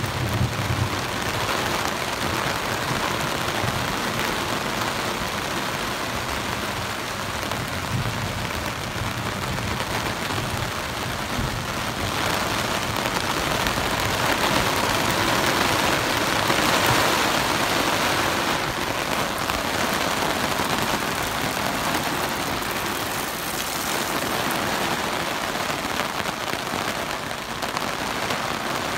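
Steady rain falling in a thunderstorm, a little heavier around the middle. Low thunder rumbles near the start, and again more faintly some seconds later.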